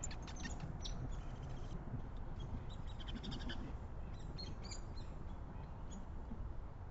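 Backyard songbirds chirping: many short, high calls scattered through, busiest in the first half, over a steady low background noise.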